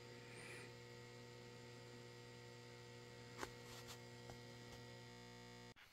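Near silence with a faint, steady electrical mains hum and a couple of soft clicks about three and a half seconds in; the hum cuts off suddenly near the end.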